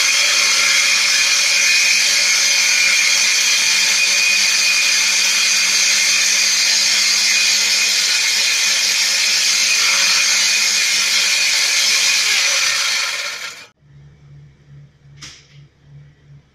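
Bosch GWS 8-100 CE angle grinder spinning a 7-inch circular saw blade, running free at its low speed setting with a loud, steady, high whine. The sound cuts off abruptly near the end.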